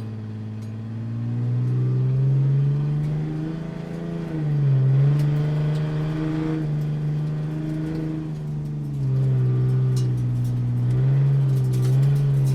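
Motorcycle engine running under throttle, its pitch holding and then stepping up and down several times as it revs.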